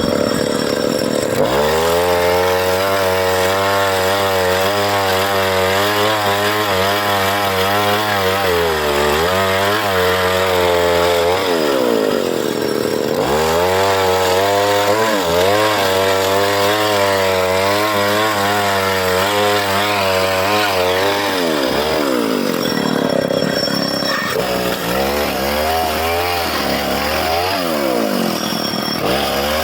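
Chainsaw engine running at high revs while cutting wood, its pitch wavering under load; the revs drop and pick up again about twelve seconds in and again a little past twenty seconds.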